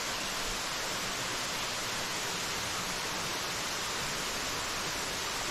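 Steady, even rushing of a small waterfall pouring into a rock pool.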